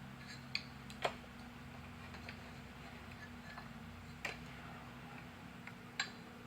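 A few sharp, light metallic clicks as piston and connecting-rod parts are handled and set together, four in all, spread out irregularly, over a steady low hum.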